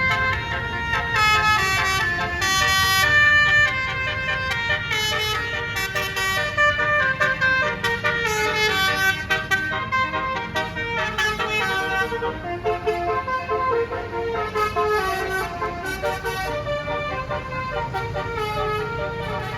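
Basuri multi-note bus horn playing a tune, its notes stepping up and down in pitch over a low road rumble.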